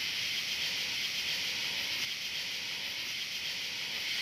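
Steady, high-pitched chorus of night insects, an even hiss that goes on unchanged.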